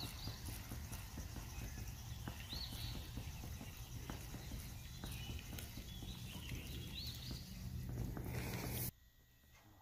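Quiet riverside outdoor sound: a steady low rumble with three short, high bird chirps spread through it and a few faint ticks. The sound drops almost to silence about nine seconds in.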